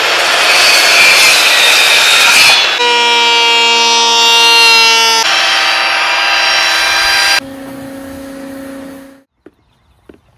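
Corded circular saw cutting through a wooden board, then electric power-tool motors whining at steady speed, then a quieter motor hum that stops about nine seconds in, followed by a few light clicks.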